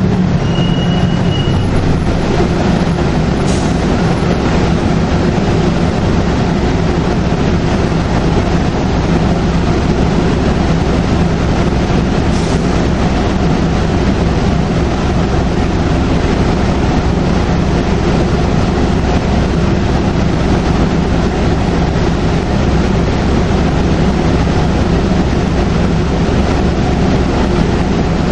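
Detroit Diesel Series 50 engine of a 2002 NABI 40LFW transit bus running steadily under way, with a constant low drone and road rumble. A faint high whistle is present for the first few seconds.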